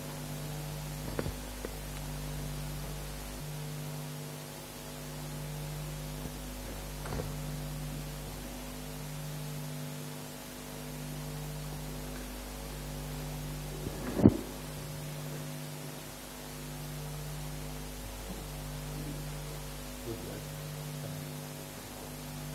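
Steady electrical hum, its low tone dipping every couple of seconds, with a few soft knocks and one sharp thump about two-thirds of the way through.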